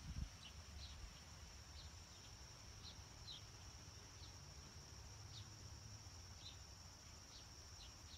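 Faint outdoor ambience: a steady high insect drone with short, irregular bird chirps about once a second, and a soft low thump right at the start.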